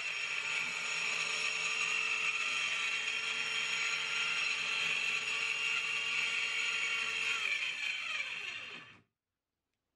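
TackLife corded mini circular saw with a fine 60-tooth blade running steadily at full speed while cutting plywood, a high motor and blade whine. Near the end the whine falls in pitch as the motor is released and spins down.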